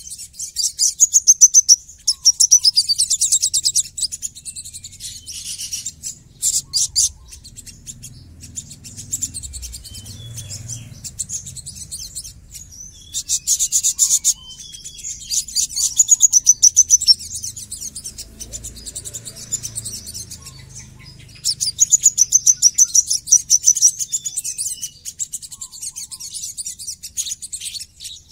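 Male olive-backed sunbird singing in bouts of fast, dense, very high-pitched trills, harsh and tightly packed, with short quieter gaps of chatter between bouts.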